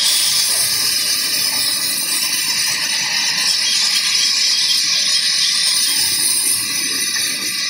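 Large band saw running and cutting through a block of wood: a loud, steady, high-pitched hiss of the blade in the wood.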